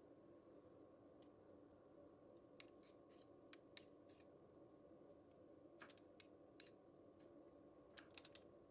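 Two metal teaspoons clinking lightly against each other as they scoop and push sticky apple-walnut filling, giving scattered sharp clicks with a quick cluster near the end, over a faint steady hum.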